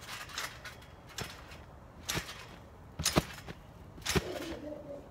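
Backyard trampoline being jumped on: the mat and springs give a sharp hit about once a second, five times, as the jumper lands and rebounds.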